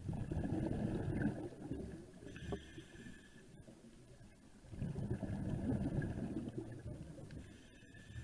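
Scuba diver breathing through a regulator, heard underwater: two long bubbling rushes of exhaled air about five seconds apart, with a fainter hiss of inhalation between them.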